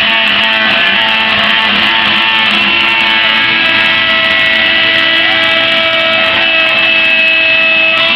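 CNC Shark router carving wood with a V-bit: the spindle runs with a steady high whine while the stepper motors drive the gantry, their pitch sliding up and down in short glides as the bit changes speed and direction.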